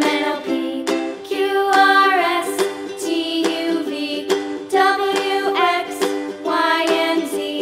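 Background music: a children's tune with a plucked-string accompaniment and a changing melody line.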